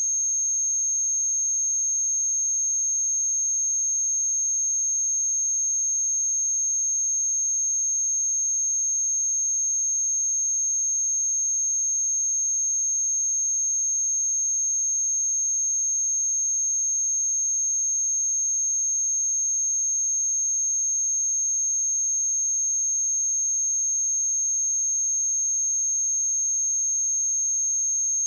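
A continuous pure 6432 Hz sine-wave test tone, a single high-pitched whistle held at a constant pitch and level.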